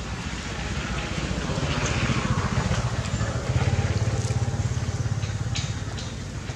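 A motor engine running steadily, growing louder about three and a half seconds in and easing off near the end, with a few faint clicks.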